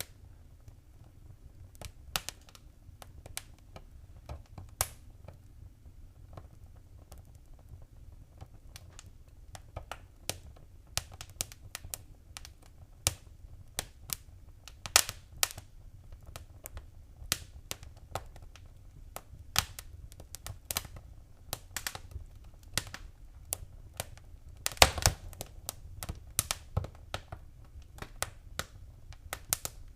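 Fireplace fire crackling: irregular sharp pops and snaps over a low steady rumble, sparse at first and more frequent after about ten seconds, with a quick run of louder crackles near the end.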